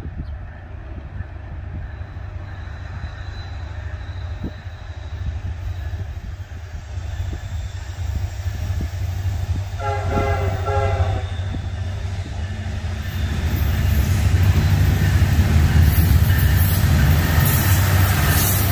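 Diesel freight train approaching, its locomotive engine rumble building steadily. About ten seconds in, the locomotive's horn sounds one short chord-like blast lasting about a second and a half. The train then draws close, getting louder with added wheel and rail noise.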